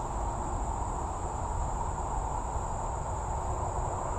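Insects trilling steadily on one continuous high note over a steady, low, even rumble of background noise.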